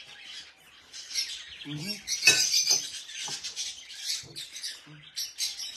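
Caged parrots chirping and squawking in frequent short, high-pitched calls, loudest about two seconds in.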